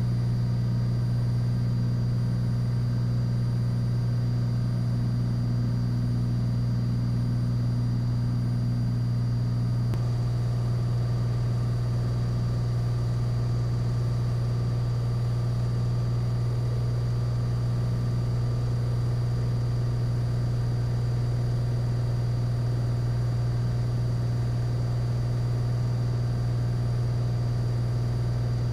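Steady drone of a Cessna 182 Skylane's piston engine and propeller in flight: a strong low hum with fainter steady tones above it. The pitch of those tones shifts slightly about ten seconds in.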